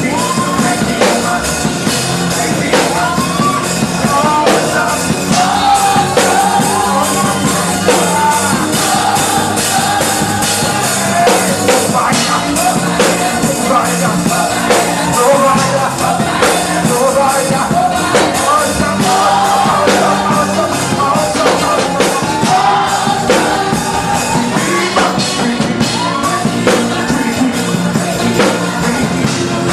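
Live gospel worship band playing an upbeat song with drums, with voices singing and shouting over it.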